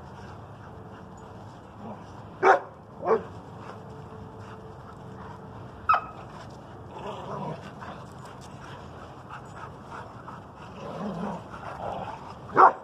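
Dogs at rough-and-tumble play, barking in sharp single barks: two in quick succession about two and a half seconds in, one around six seconds, and another near the end.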